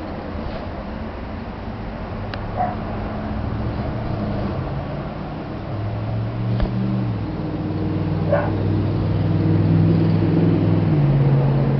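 A dog gives a few short whimpers or yips over a steady low hum that grows louder and shifts in pitch partway through.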